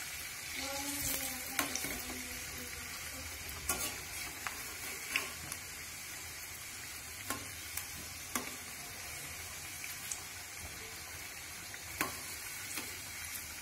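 Litti, sattu-stuffed wheat dough balls, deep-frying in oil in a kadhai over a medium flame, a steady sizzle throughout. A handful of sharp clicks come from the metal slotted spoon and tongs knocking the pan as the balls are turned.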